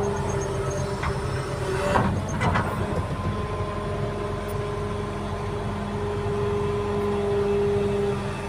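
Heavy earthmoving machine at work: its engine runs with a steady drone and a held whine, and a few sharp knocks come about one to two and a half seconds in.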